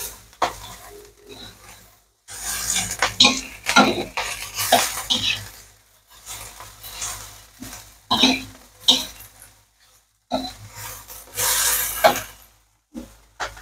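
Metal spatula scraping and clinking against a stainless steel wok in repeated strokes as shredded carrot and onion are stir-fried, with light sizzling in the pan.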